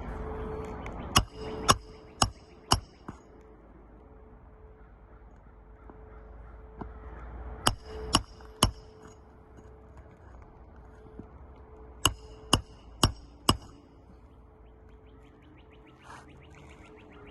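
Sharp taps or knocks on a hard object in three groups of three or four, about two a second, each ringing briefly, over a faint steady hum.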